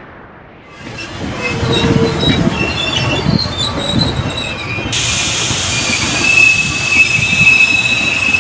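Train rolling into a station, its wheels rumbling and clattering and thin high squeals rising over them. About halfway through, a loud hiss sets in suddenly along with a steady high-pitched wheel squeal.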